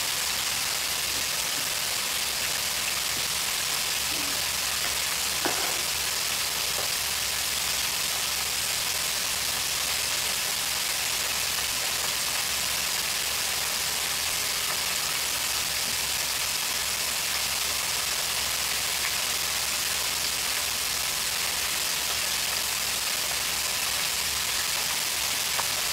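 Crinkle-cut french fries frying in hot oil in an electric deep fryer: a steady sizzle that holds at one level throughout.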